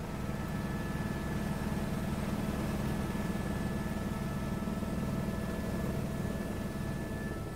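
Helicopter in steady flight heard from inside the cabin: a constant low drone of engine and rotors, with thin steady whines above it.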